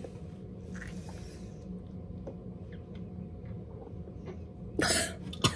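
Steady low room hum with a few faint ticks. Near the end comes a short, loud rush of breathy noise, then a brief sliding vocal sound.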